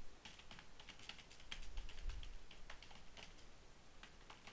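Typing on a computer keyboard: a quick, irregular run of faint keystroke clicks.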